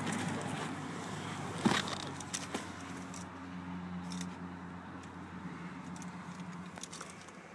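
Dodge Nitro's V6 engine running steadily at idle, heard from inside the cabin. A sharp click comes about a second and a half in, with lighter clicks and a key jangle around it.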